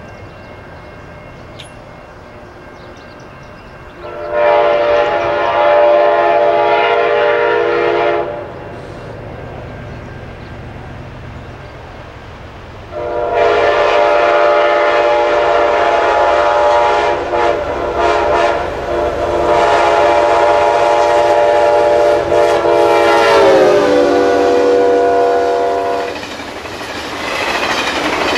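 Amtrak P42DC diesel locomotive's air horn sounding a chord: one blast of about four seconds, then after a pause a longer blast whose pitch drops as the locomotive passes. The rumble and clatter of passenger cars rolling by follows near the end.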